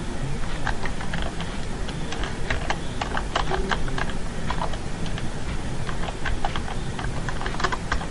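Computer keyboard keys clicking in an uneven run of keystrokes as text is typed, several clicks a second, over a steady low background hum.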